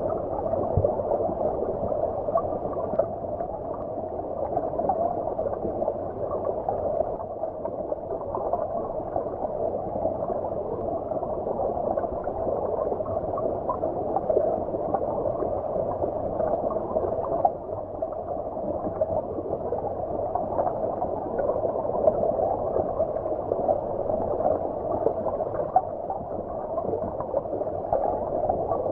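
A shallow stream's running water heard from underwater: a steady, dull rush with small irregular crackles and no hiss.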